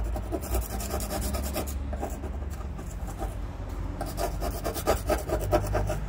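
Metal scraper blade scraping rust off the painted steel cargo floor of a Subaru Sambar van in quick, repeated strokes.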